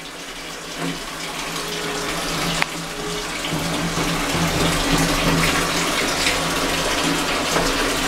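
Water running into the drum of a Singer SWM97108X top-load washing machine as it fills through its inlet valve: a steady rushing that grows gradually louder, with a low steady hum underneath.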